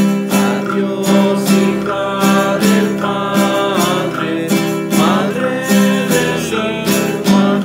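Nylon-string classical guitar strummed in a steady rhythm, about two to three strokes a second.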